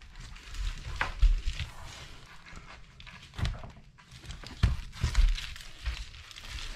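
Vinyl plank flooring being laid by hand: irregular thumps and knocks as planks are set down and pressed onto foil bubble underlayment, with some rustling in between.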